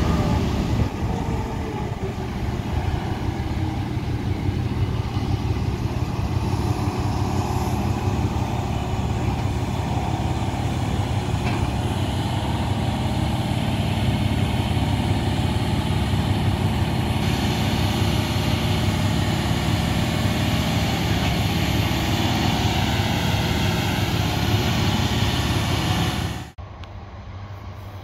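New Holland T9.700 SmartTrax tracked tractor's diesel engine running steadily as it pulls a loaded grain cart along the road. The engine sound cuts off suddenly near the end and a quieter steady sound follows.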